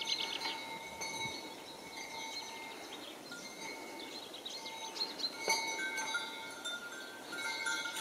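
Bells on a grazing flock of sheep ringing: several overlapping steady tones at different pitches that come and go.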